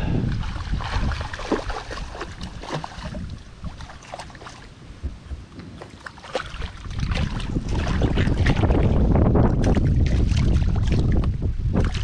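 Wind rumbling on the microphone, heavier from about seven seconds in, with scattered splashes and clicks as a hooked Australian bass thrashes at the surface beside a kayak.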